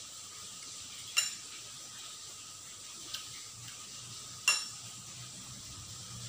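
Metal spoon and fork clinking against the dishes, including a glass bowl of curry. There are two sharp clinks with a short ring, about a second in and about four and a half seconds in, and a lighter tap between them.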